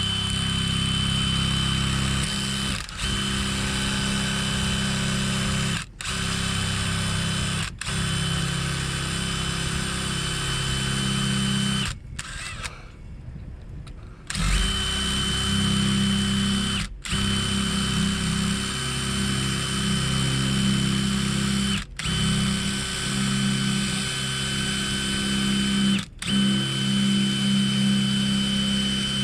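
Electric drill running at a steady speed as it bores out the pin of a locked trailer kingpin lock, to work the pin loose. The drill stops briefly every few seconds and pauses for a couple of seconds about twelve seconds in.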